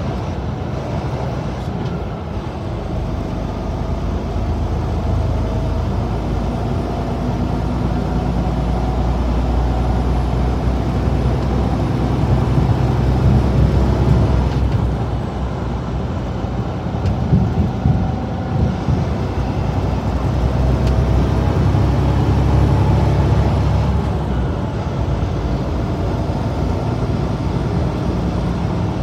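Semi-truck running at highway cruising speed, heard from inside the cab: a steady low engine drone over tyre and road noise, slowly swelling and easing, with a faint high whine that comes and goes.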